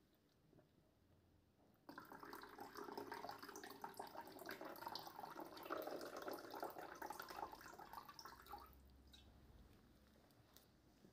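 Faint running, splashing water, starting abruptly about two seconds in and dying away about seven seconds later.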